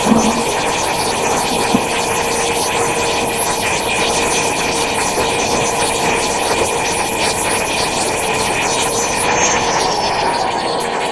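Electric power tool running steadily with a motor whine, used on the steel of the anvil. Near the end its pitch slides down as the motor slows.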